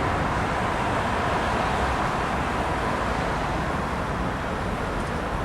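Busy city street ambience: a steady wash of road traffic noise, beginning to fade out near the end.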